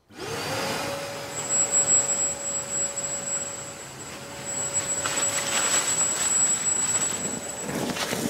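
Kärcher multi-purpose wet and dry vacuum switched on and running in blower mode, its motor giving a steady whine over a rush of air.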